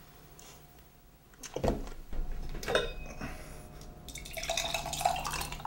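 Spoiled, lumpy milk being poured. A knock comes about a second and a half in, then scattered splashes and glugs, and near the end a filling sound rises in pitch.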